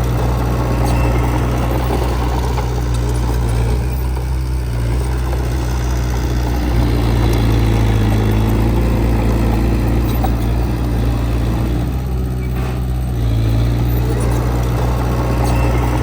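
Heavy earth-moving machine's diesel engine running steadily, working a little harder in the middle stretch, then easing off for a moment about twelve seconds in.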